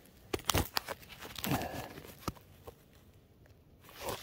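A few short crunches and clicks of loose gravel and rock chips being disturbed, mostly in the first second and a half and once more a little past two seconds, then a soft rustle near the end.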